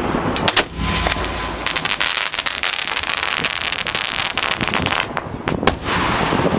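Fireworks going off close by: a few sharp bangs about half a second in, then a few seconds of dense rapid crackling, then more sharp bangs near the end.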